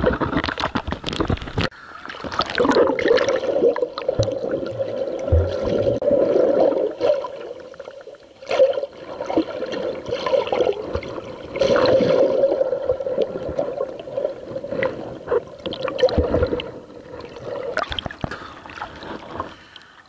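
Muffled sloshing and gurgling of sea water heard by a camera held under the surface, swelling and falling away several times, with sharp splashes as it goes in near the start.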